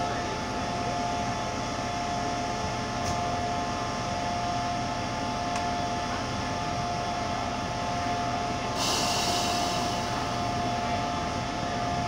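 SRT QSY diesel-electric locomotive idling while standing at the platform: a steady engine and fan drone with a steady mid-pitched whine. About nine seconds in, a hiss of air sets in and keeps going.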